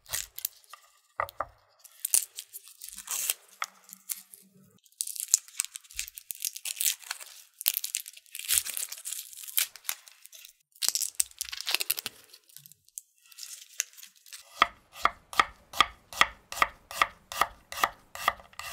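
A garlic clove being peeled by hand, its papery skin crackling and tearing in irregular bursts. Then, about fifteen seconds in, a knife slicing the clove into thin chips on a wooden cutting board, about three even cuts a second.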